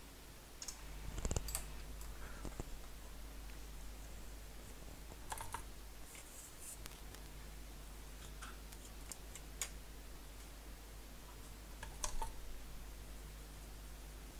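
A few light, sharp clicks and taps spaced several seconds apart, about four in all, over a faint steady low hum.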